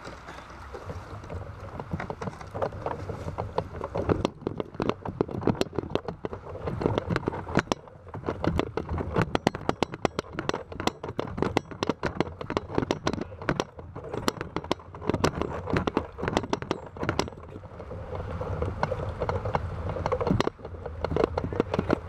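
A sit-on-top fishing kayak being dragged out of the water up a grooved concrete boat ramp, its hull scraping and knocking rapidly and irregularly over the ridges. After a few seconds of water around the hull, the knocking runs on for a long stretch, then eases into a smoother rumble as the hull slides onto asphalt.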